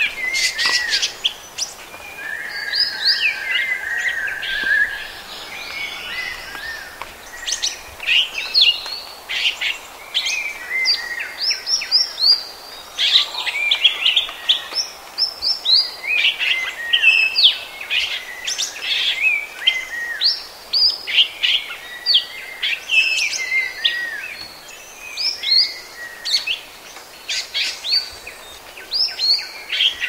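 Orange-headed thrush singing a varied song of quick whistled phrases, note after note with hardly a pause, over a steady background hiss.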